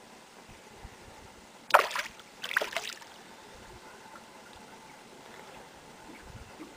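Two splashes of fish at the lake surface, about a second apart and close to two seconds in. A faint steady wash of water runs underneath.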